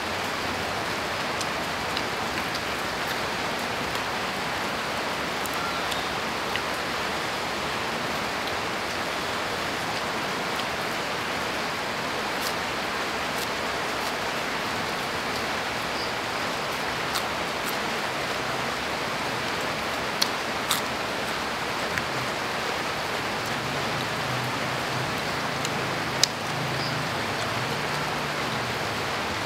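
Steady rain falling, a constant even hiss, with a few brief clicks about two-thirds of the way in and a low hum coming in near the end.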